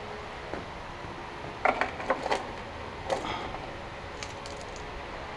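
Sharp metallic clinks and knocks of small bolts and metal parts being handled and set down: a cluster of several about two seconds in, another a second later, then a few faint ticks.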